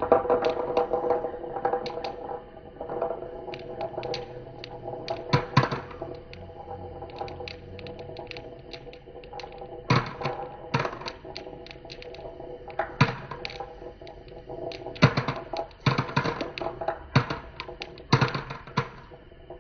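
Marbles rolling and clacking along a wooden marble run, with irregular sharp knocks as they drop onto and strike the wooden pieces. Metallophone notes ring out and fade in the first second or two.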